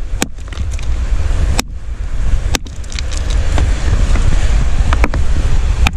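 A small hammer striking a rock nodule several times, sharp cracking knocks at uneven intervals, as the nodule is split open in search of a fossil inside. Steady low wind rumble on the microphone underneath.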